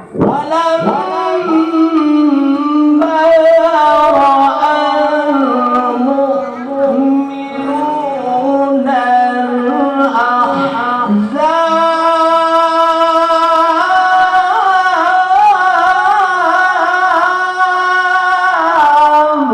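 Male qari reciting the Quran in the melodic tilawah style, in a high voice with wavering ornaments on held notes. Several phrases, the last one held long from about eleven seconds in until just before the end.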